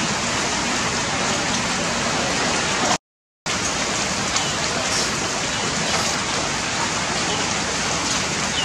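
Steady rain, an even hiss, cut to silence for about half a second about three seconds in.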